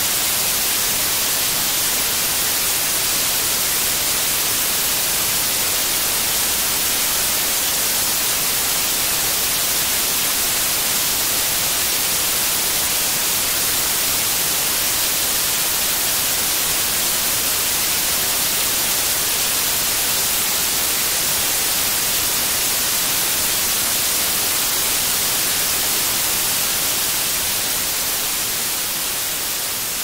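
Steady white noise, an even hiss with no pattern or tone in it, beginning to fade out over the last few seconds.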